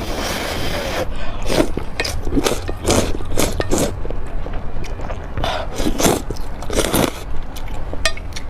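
Close-miked chewing and biting of food, a run of sharp mouth sounds about two to three a second.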